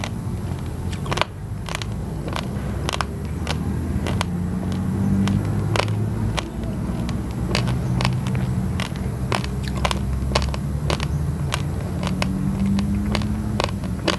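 Raw basmati and glutinous rice grains crunched between the teeth: irregular sharp cracks, several a second. Underneath runs a low motor rumble that swells and fades.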